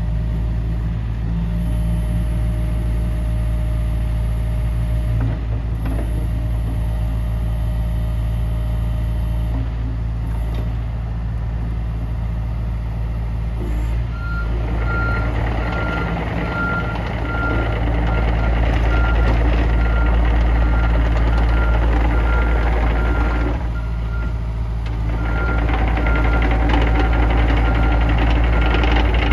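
John Deere 50G compact excavator's diesel engine running steadily at idle. About halfway through it gets louder as the machine works and moves, and a high warning alarm beeps repeatedly, pausing briefly once before it starts again.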